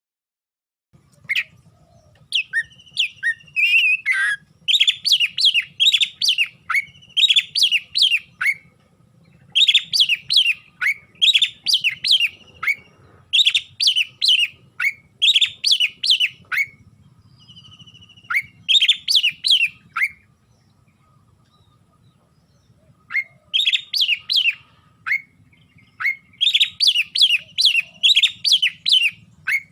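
Oriental magpie-robin (kacer) in full 'gacor' fighting song: fast runs of loud, sharp, repeated whistled notes, a few seconds at a time, with short pauses and a longer lull about twenty seconds in.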